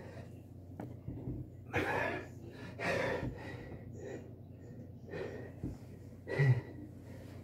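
A man breathing hard from the exertion of push-ups: several heavy, noisy breaths at irregular intervals, the loudest about two, three and six and a half seconds in.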